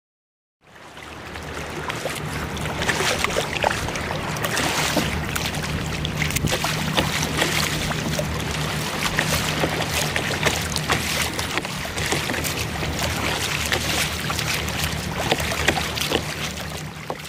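Sea kayak being paddled through choppy water: paddle strokes and waves splash and slap against the hull in a dense wash of water noise. Wind rumbles steadily on the action camera's microphone. The sound fades in about a second in and cuts off sharply at the end.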